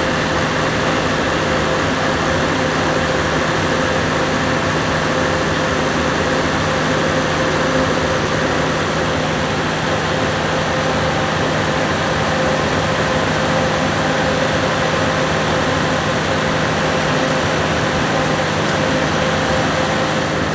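Perkins 1106 six-cylinder diesel generator engine running close up at a steady governed speed while its injection pump droop setting is adjusted to cure engine hunting.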